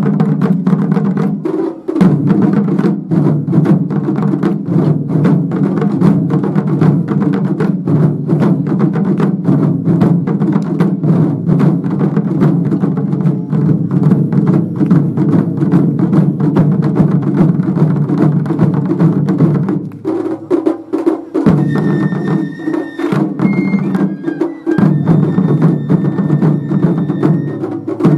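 Japanese taiko drums played by an ensemble in a fast, dense, driving rhythm. High held piping notes join in and out over the last third.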